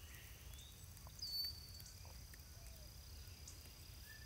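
Faint outdoor garden ambience: a low rumble and a thin, steady high tone, with one short rising bird chirp a little over a second in.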